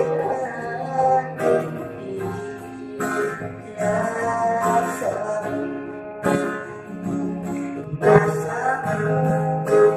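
A man singing a Tausug-language song to his own strummed acoustic guitar.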